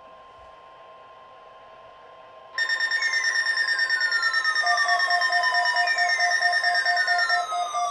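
Electronic alert tones. A faint steady tone with hiss, then about two and a half seconds in, a loud layered alarm starts: several held tones, a falling sweep that repeats about every three seconds, and from about halfway a rapid pulsing beep.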